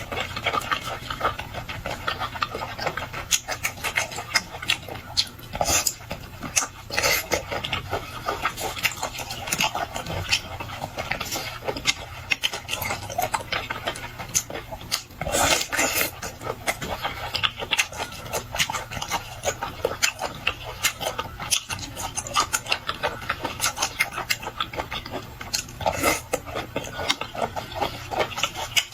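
Close-miked chewing and slurping of sea cucumber: a continuous run of wet, sticky mouth clicks and crackles, with short pauses between bites.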